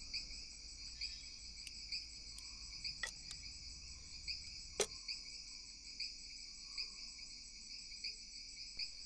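Crickets chirping steadily, a high trill that swells in a regular beat. A few light clicks of tableware land over it, the sharpest about five seconds in.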